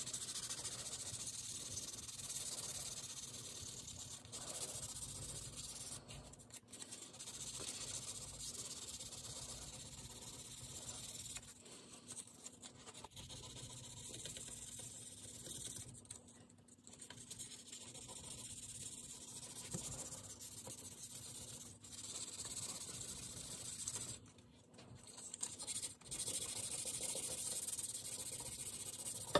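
Hand sanding of a pinball playfield: sandpaper on a sanding block rubbed back and forth over the wood, the plastic inserts and the glazing-putty filler to level them. It is a steady hissing rasp with several brief pauses.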